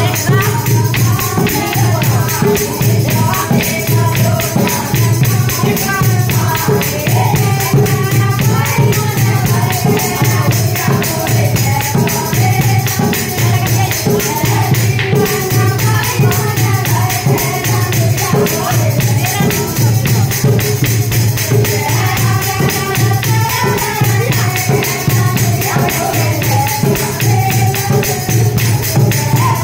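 Women singing a Haryanvi laguriya folk bhajan together, with a dholak hand drum played in a fast, steady rhythm and a steel spoon clicking against the drum.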